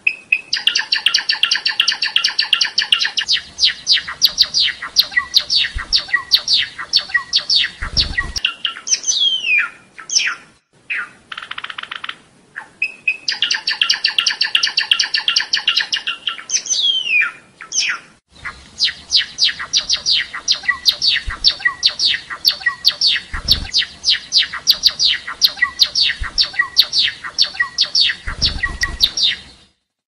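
Java sparrow singing: long runs of rapid, clicking notes, broken twice by a drawn-out gliding whistle and once by a short buzzy note.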